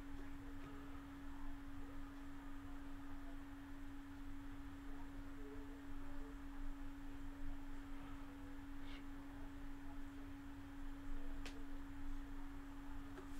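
A steady, unchanging low hum on a single pitch over a faint low rumble of background noise, with a faint click about two seconds before the end.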